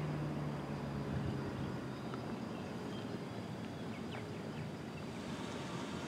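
Federal Signal 2001-SRNB electromechanical siren winding down at the end of its test: a low tone sinks in pitch and fades out over the first couple of seconds, leaving only steady background noise.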